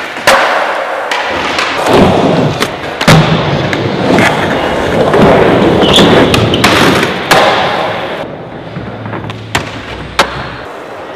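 Skateboard rolling over a smooth concrete park floor, with about half a dozen sharp clacks and thuds as the board pops, grinds a metal rail and a ledge, and lands.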